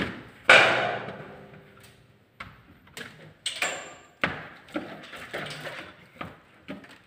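A loud metallic clang about half a second in, ringing on for over a second, followed by a run of lighter knocks and taps.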